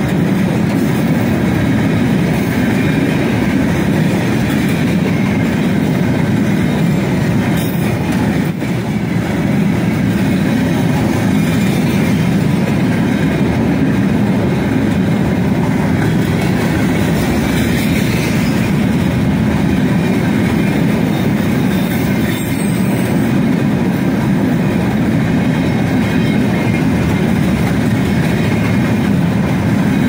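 A long freight train of open gondola wagons running past at speed, its steel wheels giving a steady rolling rumble on the rails.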